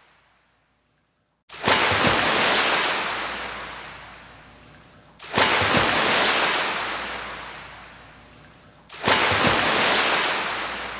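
Ocean surf: three waves wash in about every three and a half seconds, each breaking suddenly and fading away slowly. This follows a second and a half of near silence.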